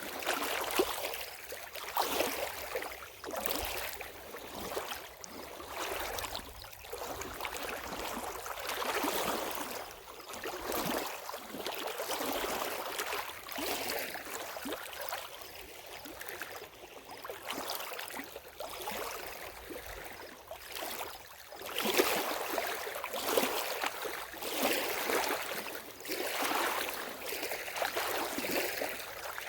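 Lake water at the shoreline, washing and splashing in small irregular swells every second or two, with a louder surge about two-thirds of the way through.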